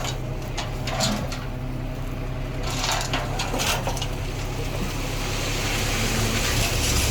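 Diesel engine of earthmoving machinery running steadily, with short bursts of gritty scraping noise about half a second in and around three seconds in.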